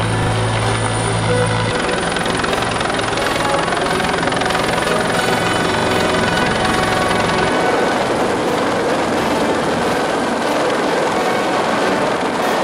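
Helicopter running close by, with loud, steady rotor and engine noise. A deep steady hum drops away about two seconds in.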